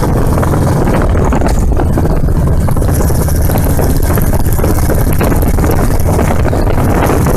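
Royal Enfield motorcycle engine running steadily at cruising speed, with wind noise on the microphone over a low, even rumble.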